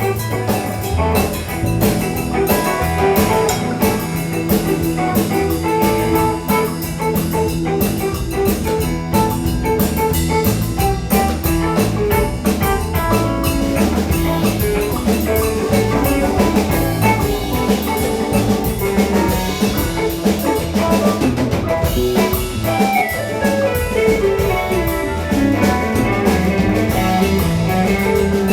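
Live band playing an instrumental passage: drum kit and guitar over a steady low rhythm, with a falling run of notes near the end.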